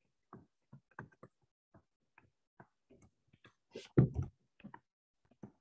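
Hard stylus tip tapping and clicking on a tablet's glass screen while handwriting, a few irregular light clicks a second, with one louder thump about four seconds in.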